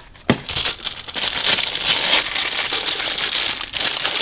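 Plastic packaging crinkling and rustling as it is handled to get the battery charger out, starting with a sharp click.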